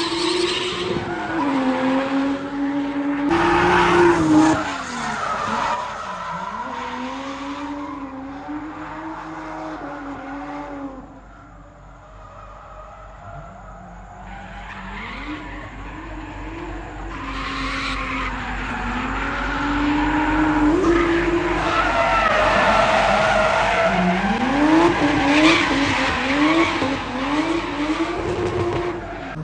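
Drift car's engine revving hard, its pitch rising and falling with throttle and gear changes, over skidding, squealing tyres. It dies down about eleven seconds in, then grows loud again, with a run of quick rev jumps near the end.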